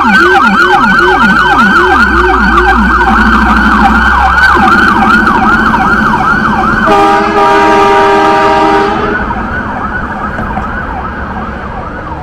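Ambulance electronic siren on a fast yelp, a quick rise-and-fall whoop about five times a second. About seven seconds in it breaks into a steady horn blast of about two seconds. The sound then fades as the ambulance drives away.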